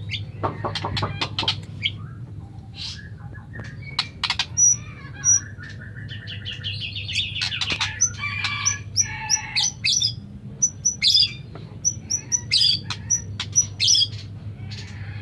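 White-rumped shama singing a varied song of clear whistles, quick trills and sharp high notes, with a dense run of loud phrases in the second half.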